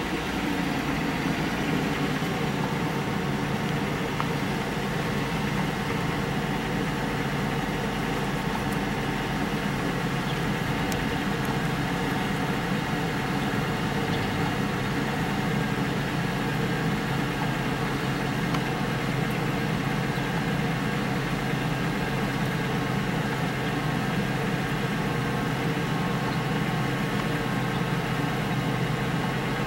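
A steady mechanical hum at an unchanging pitch and level.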